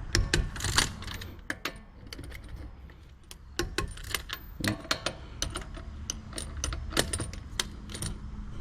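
Irregular metallic clicks and clinks of hand tools being handled and set down while working on the car's wheels.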